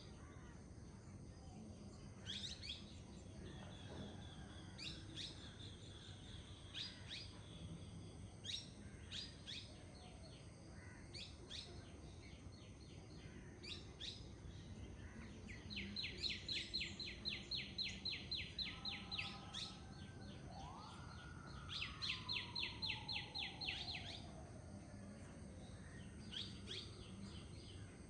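Several wild birds calling and singing over the steady low rush of a forest river: sharp high chirps throughout, two fast, even trills of rapidly repeated notes in the second half, and a long falling whistle beneath the second trill.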